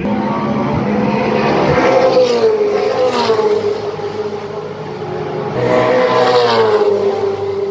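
Supercars V8 race cars passing at speed one after another, one of them a Ford Mustang Supercar. Each engine note swells and then drops in pitch as the car goes by, the first about two seconds in and the second about six seconds in.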